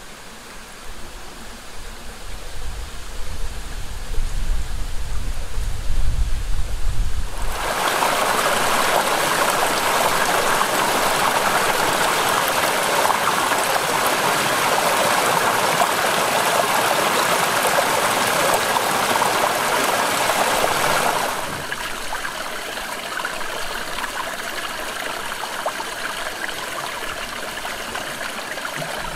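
Small rocky woodland stream rushing and splashing over rocks and little cascades. It is deep and rumbling at first, turns much brighter and louder about eight seconds in, and softens to a lighter splashing two-thirds of the way through.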